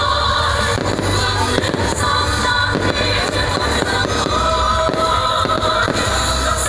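Fireworks bursting again and again, over loud music with a singing voice.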